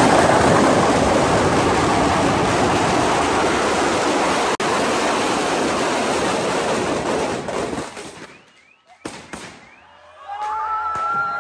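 Fireworks packed in a burning Ravan effigy going off in a dense, steady crackle and hiss that cuts out about eight seconds in. A couple of sharp bangs follow, then a steady whistling tone near the end.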